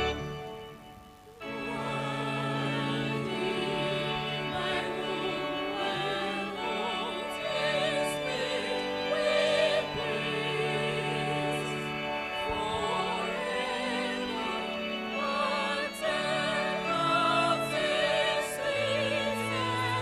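Congregation and robed choir singing a hymn together over steady held bass notes. After a short break between verses, singing resumes about a second and a half in and carries on through the next verse.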